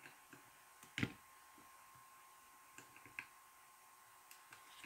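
A few faint clicks and taps of laser engraver frame parts being handled and pushed together by hand, with one sharper click about a second in.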